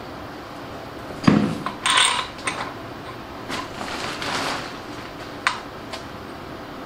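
Metal hand tools being handled on a bare engine block: a knock about a second in as the ratchet is set down, then a few metallic clinks and rattles, and a sharp click near the end.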